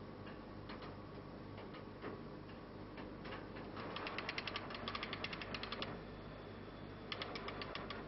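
Hand-cranked wire-rope winch of an engine crankcase jack hoist ratcheting as it lifts a hydraulic main bearing jack. A few single clicks come first, then two runs of rapid, even clicking, about ten a second, the first about four seconds in and the second near the end.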